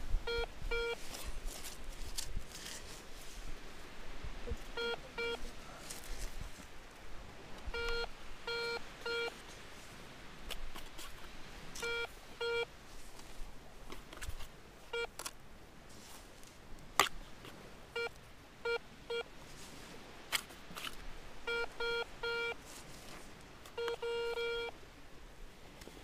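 Metal detector giving short, mid-pitched beeps, often in pairs or threes, every few seconds as its search coil passes over a buried metal target in the sand, with one longer tone near the end. Between the beeps, sand is scraped and scooped by hand with a few sharp clicks.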